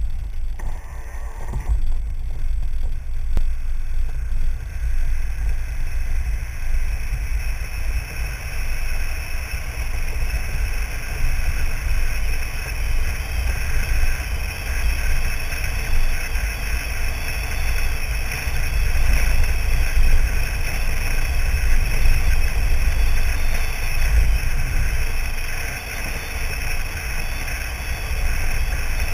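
Pickup truck driving on a dirt road, heard from a camera mounted outside on the side mirror: a steady deep rumble of wind buffeting the microphone over the sound of the moving truck.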